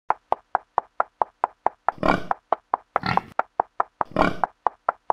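Cartoon sound effects: evenly spaced hoof taps, about four a second, with three short pig grunts about two, three and four seconds in.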